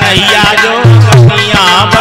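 Hindi devotional bhajan: a man singing with harmonium accompaniment and a hand drum keeping a quick, steady beat, with heavy low drum strokes.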